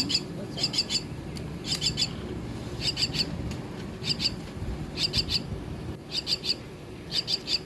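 Young Javan mynas chirping: bursts of three or four quick, high chirps repeated about once a second.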